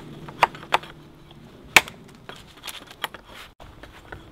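A large bushcraft knife chopping into a wooden pole: a series of sharp, irregularly spaced chops, the loudest a little under two seconds in.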